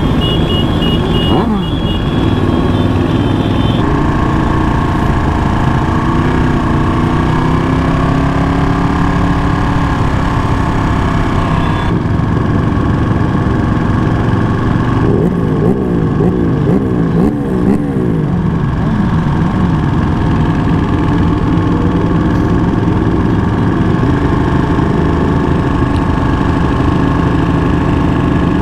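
Motorcycle engine running at low speed, heard from on board in a large pack of other motorcycles. Around the middle the revs rise and fall quickly several times.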